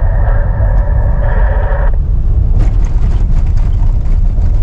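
Heavy, steady low rumble of a moving vehicle heard from inside. A steady mid-range hum stops about two seconds in, followed by a run of light rattling clicks.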